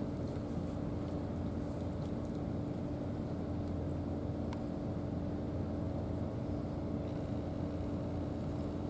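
A steady engine drone: an even low rumble with a constant hum tone.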